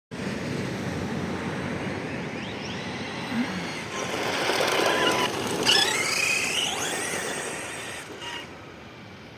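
Arrma Senton 3S RC truck driving: its motor whines up and down in pitch with the throttle over a steady rush of tyre noise. It is loudest about halfway through and fades near the end as the truck moves away.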